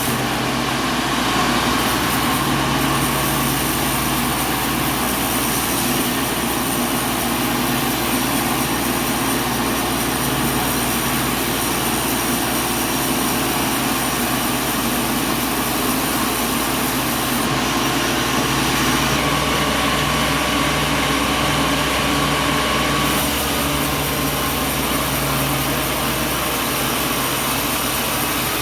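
Sawmill machinery running steadily: a continuous, even mechanical drone with a constant low hum and faint steady whines.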